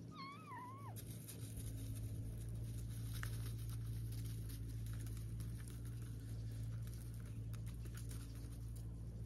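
A kitten gives one short wavering meow right at the start, then soft rustling and light ticks in dry straw as it steps about, over a steady low hum.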